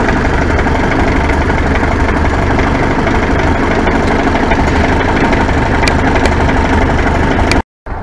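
A 1930 Ford Model A's four-cylinder flathead engine idling steadily, purring along on its newly installed FSI distributor. The sound drops out abruptly near the end.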